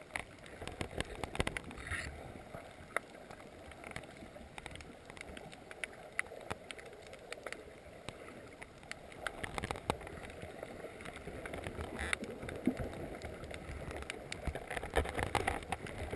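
Underwater reef ambience heard from inside a camera's waterproof housing: a low, uneven rush of moving water with many scattered sharp clicks and crackles throughout.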